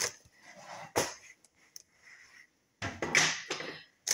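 Grocery packages being handled on a table: two sharp knocks about a second apart as boxes are put down, then a louder rustle of plastic packaging near the end.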